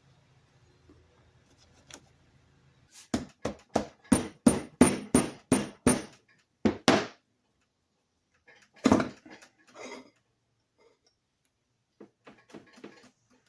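Hammer strikes on the metal of an antique Western Electric electric motor during disassembly: about ten quick taps with a metallic ring over roughly four seconds, then one heavier knock and a few light clicks.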